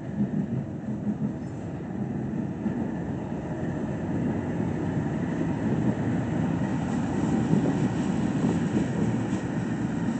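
CSX freight train passing close by, led by a GE diesel-electric locomotive with a C40-8W (Dash 8) second: diesel engines running and steel wheels rolling on the rails in a steady rumble that grows a little louder as the locomotives go past.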